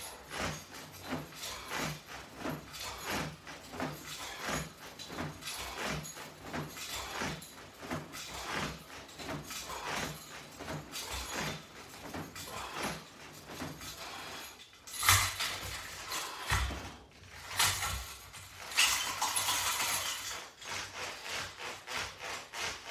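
Resistance-band straps and their metal hardware clinking and rubbing in rhythm with repeated crunches, about two small ticks a second, with louder rustling and shuffling of body movement about two-thirds of the way in.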